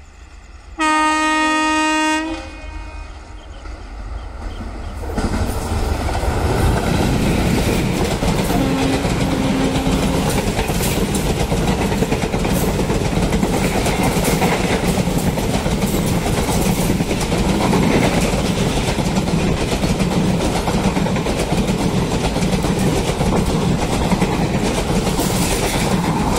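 Indian Railways WAP-4 electric locomotive sounds one long horn blast about a second in, then the train approaches and passes at speed, the wheels of its ICF coaches clattering over the rail joints for the rest of the time.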